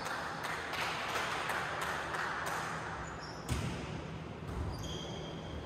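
Ball knocks on a hardwood gym floor, about two a second, then a harder hit about three and a half seconds in, with a few short high shoe squeaks during the rally that follows, echoing in a large gym.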